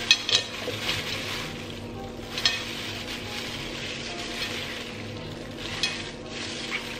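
Plastic-gloved hands squeezing a bunch of fish-sauce-salted green onions over a glass bowl: a wet, crackling hiss of squeezed leaves and crinkling gloves, with a few sharper clicks as the grip shifts.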